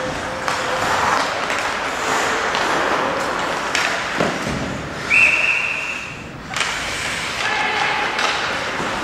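Ice hockey play in an arena: skates scraping and sticks on the ice, with a couple of sharp knocks a little before halfway. Just past halfway a referee's whistle blows one steady note for about a second, stopping play for a faceoff.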